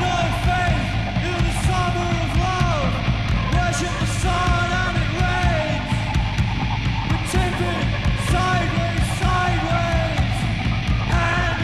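Loud, dense noise rock from a guitar, bass and drums band: distorted guitar and pounding low end over drums, with a yelled vocal line whose pitch swoops up and down.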